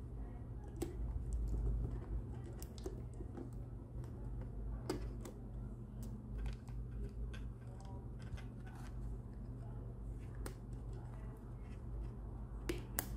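Hands fitting a black elastic cord onto a small part of a crossbow pistol, making scattered light clicks and taps, a little stronger about a second, five seconds and ten seconds in, over a low steady hum.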